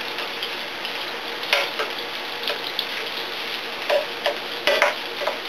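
Onions sizzling in a frying pan with a steady hiss, stirred with metal utensils that click and scrape against the pan at irregular moments.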